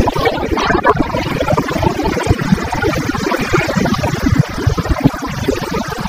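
Wind buffeting hard on the rider's camera microphone while a BMW F800GS motorcycle is ridden along a street, with the bike's engine running underneath.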